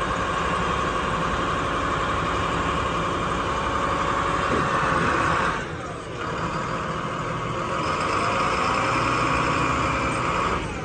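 Diesel engine of a 2013 International WorkStar 7300 digger derrick truck running steadily, with a high whine over it. The sound dips briefly about six seconds in and again at the end.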